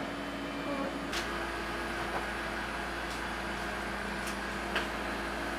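Steady electric hum of refrigerated display cases running, with a faint high whine joining about a second in and a few faint clicks.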